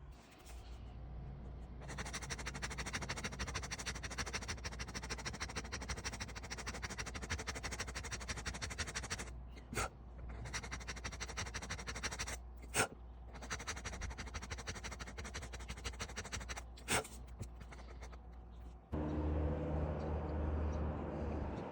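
Power tools working wood: a steady, gritty machine noise with three sharp clicks, switching abruptly near the end to a lower, humming machine.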